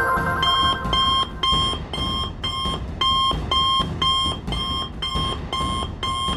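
Electronic alert beeping, a short two-note beep repeating about twice a second without a break: an incoming emergency call signal.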